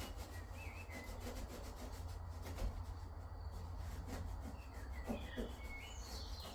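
Hand rubbing and scrubbing on the sink surface around the tap hole, cleaning off old residue. It comes as irregular scratchy strokes with a few short squeaks, over a steady low rumble.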